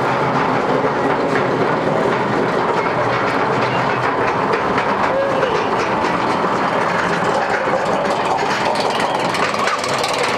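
Roller coaster train climbing a chain lift hill, with the lift chain and anti-rollback dogs giving a steady clattering.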